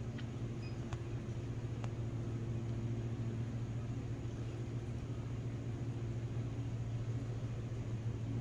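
Steady low mechanical hum of a reef aquarium's running pumps, with a few faint ticks.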